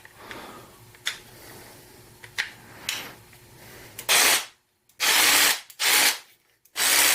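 A few faint handling clicks, then a Black+Decker 20V MAX cordless jigsaw (BDCJS20B) motor runs in four short bursts, each ending abruptly, the last the longest.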